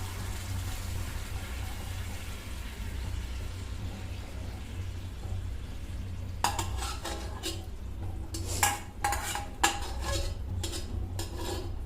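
A metal spoon stirring dal in a metal pot: after a soft hiss that fades over the first few seconds, a run of clinks and scrapes against the pot starts about halfway through.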